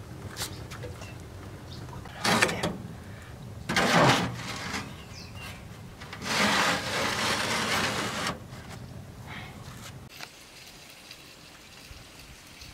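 Metal pan clanking and scraping against the oven of a wood-burning cook stove as it is slid in: two short clanks about two and four seconds in, then a scrape lasting about two seconds.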